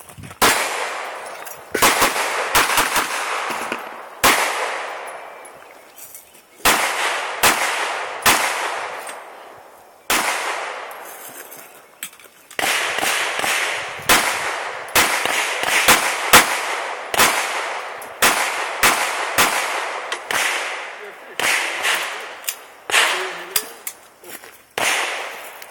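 Handgun shots fired in quick strings of two and three with short pauses between, each shot trailing off in a long echo.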